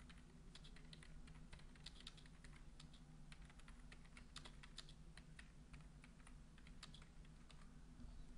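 Faint typing on a computer keyboard: irregular key clicks, several a second, over a low steady hum.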